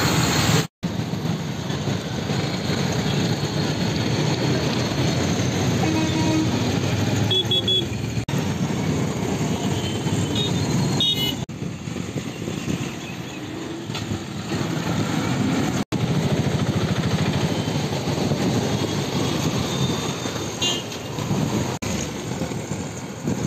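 Steady outdoor street and traffic noise with a few short, high vehicle-horn toots. The sound drops out abruptly twice where clips are cut together.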